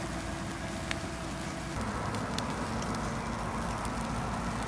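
Food sizzling on a charcoal grill, a steady hiss with a few sharp pops. A low hum runs underneath and drops in pitch about two seconds in.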